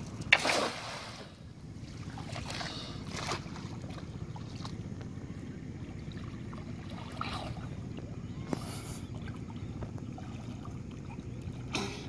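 Pond water splashing and sloshing as a person swims through it, with one louder splash about half a second in and smaller splashes after.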